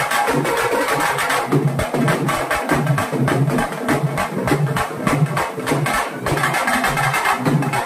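Live band of strap-slung marching drums beaten with sticks, playing a dense, rapid, driving dance rhythm.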